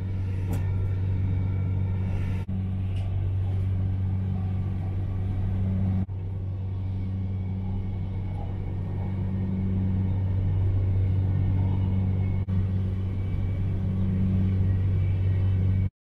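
Passenger train running, heard from inside the carriage: a steady low rumble with a deep hum. It breaks off briefly three times, at about two and a half, six and twelve and a half seconds.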